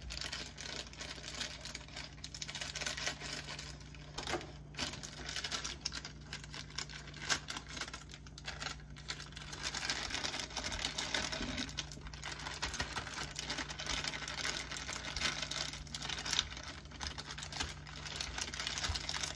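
Plastic bag crinkling and rustling in the hands, a dense run of small crackles, as cheese curds are pulled out of it and dropped into a blender jar. Near the start there is the clatter of a kitchen utensil drawer being rummaged through.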